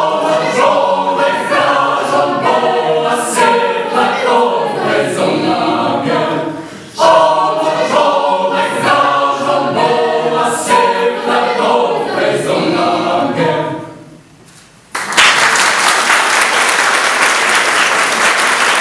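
Mixed choir singing a cappella, its final chord fading out about fourteen seconds in. After a pause of about a second, the audience breaks into applause.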